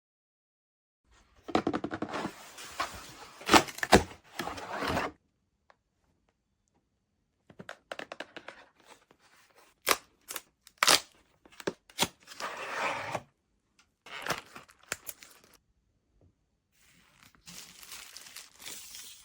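Handling noises in several bursts: tearing and crinkling, with sharp clicks and knocks among them.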